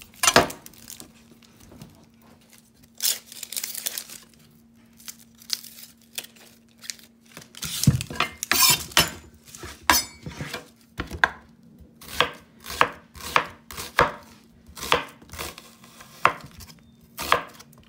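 Chef's knife cutting large white onions on a wooden cutting board: scattered cuts and knocks at first, then from about eight seconds in a steady run of slicing strokes, about two a second, each ending with the blade knocking on the board.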